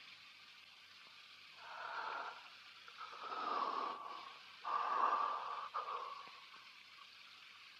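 A person's heavy breathing: three long, breathy exhalations like deep sighs, the last and loudest about five seconds in, over a steady faint hiss.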